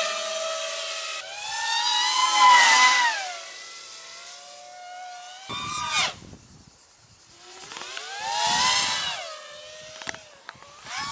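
Realacc X210 FPV racing quadcopter's brushless motors and propellers whining as it flies past, the pitch sweeping up and back down with the throttle in two big swells, one near the start and one about two-thirds of the way through. A brief harsh rasp comes about six seconds in.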